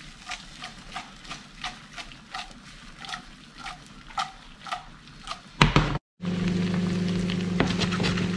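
A non-stick frying pan of onions and chilli in oil being tossed over and over on a glass-top hob, knocking about three times a second, with a loud clatter at the last toss. After a short break the onions sizzle over a steady low hum, with occasional crackles.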